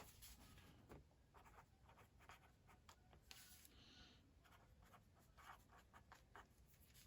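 Faint paper-handling sounds: small scratches, clicks and rustles of a sticker being peeled and pressed onto a planner page, with a brief louder rustle a little past halfway.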